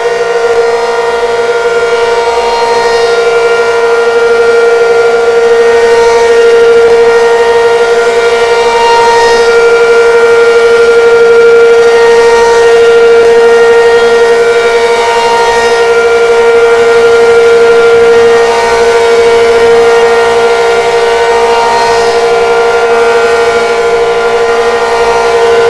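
Outdoor warning siren sounding a steady tone at full pitch during a test, loud and unchanging in pitch, swelling and fading slightly every few seconds.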